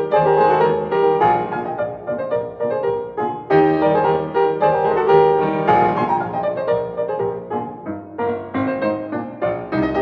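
Piano music: a steady run of struck notes and chords, each starting sharply and fading.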